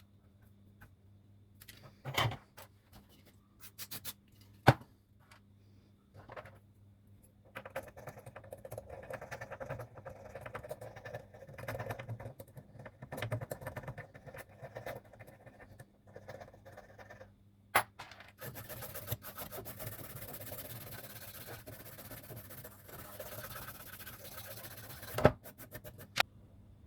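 Hand work on a circuit board: sharp clicks and taps of tools, long stretches of scratching and rustling, and a steady hiss from about two-thirds of the way in, over a faint electrical hum.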